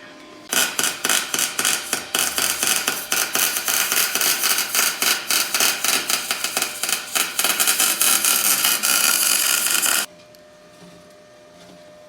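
MIG welder arc crackling as the AE86 differential is welded up to lock it. It starts about half a second in and cuts off sharply about two seconds before the end.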